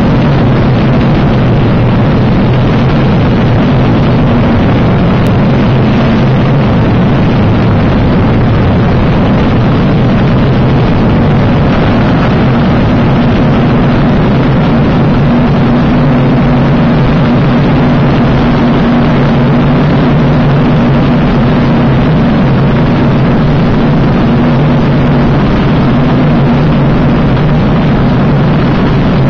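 Choucas flying-wing light aircraft in flight, heard from the cockpit: a loud, unchanging engine drone with a low hum under a thick rush of airflow noise.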